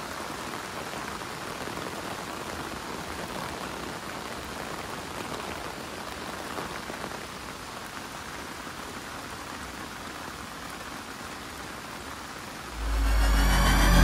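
Heavy rain falling steadily, an even hiss of drops. Near the end a sudden loud low rumble comes in over it.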